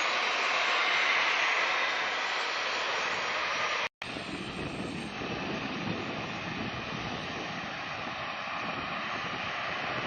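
Jet airliner engines, a steady rushing noise with a faint falling whine. It cuts out for an instant about four seconds in, then the engine noise resumes and grows louder near the end.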